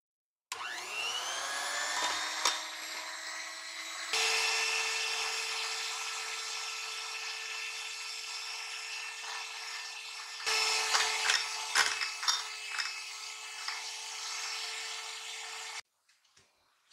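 Black & Decker electric hand mixer whipping instant coffee, sugar and hot water into dalgona foam in a glass bowl. The motor whines up to speed about half a second in, runs steadily with abrupt changes in tone twice, the beaters clicking against the glass, and stops suddenly near the end.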